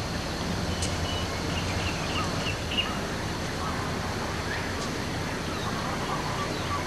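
Outdoor ambience: a run of short, high bird chirps about one to three seconds in, over a steady low hiss and hum.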